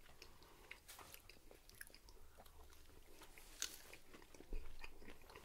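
Faint chewing and biting of crispy breaded chicken nuggets (McDonald's Chicken McNuggets): scattered small crunches, with a sharper crunch about three and a half seconds in.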